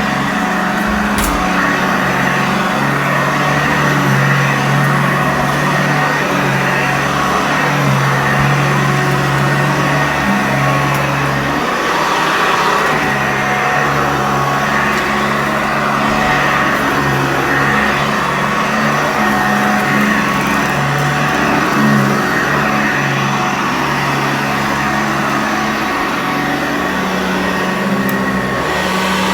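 Sanitaire upright vacuum cleaner running steadily on carpet with a high whine, its low hum shifting in pitch every second or two.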